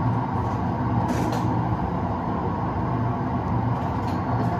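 Train-driving simulator's running sound: the steady rumble and low hum of an electric train cruising at about 85 km/h, played through the cab's speakers.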